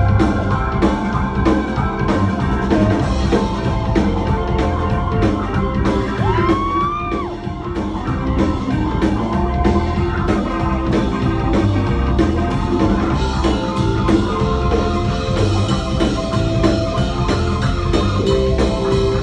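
Live rock band playing loudly, with drum kit, guitar and electric keyboard. A sliding note rises and then falls about six seconds in.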